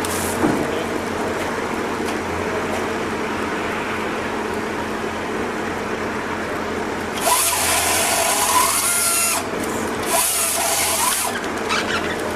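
A power tool running steadily, with two louder, harsher bursts of cutting, one about seven seconds in and a shorter one about ten seconds in.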